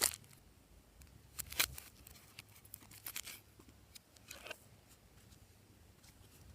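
Glossy slime being worked by hand, giving short sticky crackles and pops in a few bursts, then going quieter for the last two seconds.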